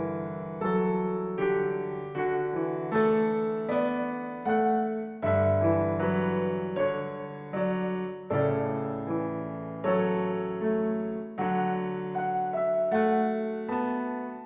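Background piano music: a gentle melody of struck notes, each fading away, about two a second.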